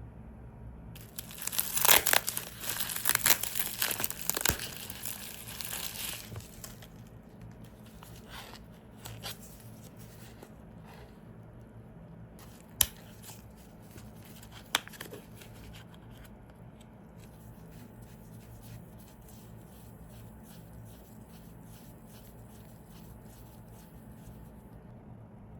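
Loud crinkling and tearing noises for about five seconds, followed later by two sharp clicks about two seconds apart and then faint, quick ticking.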